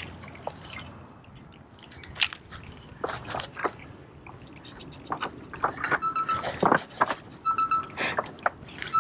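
Irregular clicks and crunches of a spinning rod and reel being handled close to the microphone, louder in the second half. A short, steady high note sounds twice in the second half.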